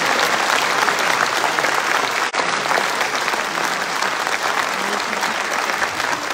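Audience applauding steadily in a theatre, with a brief dropout a little over two seconds in.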